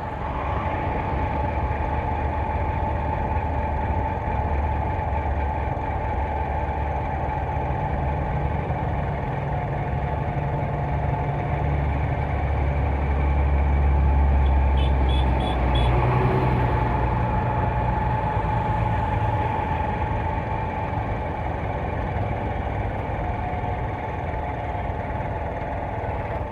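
Riding on a small commuter motorcycle (TVS Sport): its engine runs steadily under the road and wind noise. Near the middle a deeper rumble swells for a few seconds as a truck is passed close alongside.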